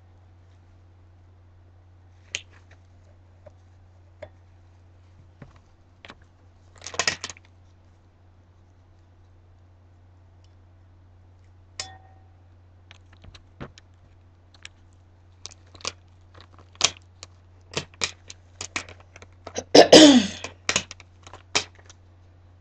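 Small scattered clicks and taps from gloved hands handling a wine glass, getting busier in the second half. Just before the end there is a louder short clatter and rub as the glass is set down on the table. A steady low hum runs underneath.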